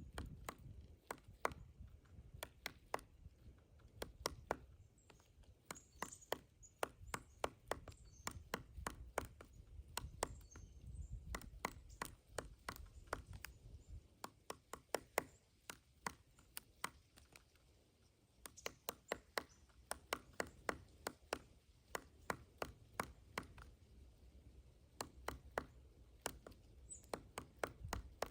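Pileated woodpecker pecking into a pine tree, excavating the wood: sharp irregular knocks, several a second, in runs broken by short pauses.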